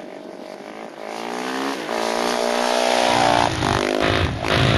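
Dirt bike engine accelerating hard, its pitch climbing and dropping back as it shifts up about twice, growing louder as the bike approaches. A low rumbling joins about three seconds in as it comes close.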